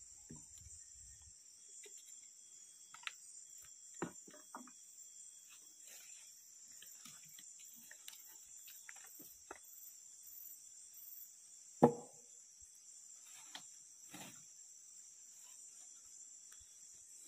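Steady high-pitched chorus of insects, with a few scattered knocks and clicks; one sharp, loud knock stands out about two thirds of the way through.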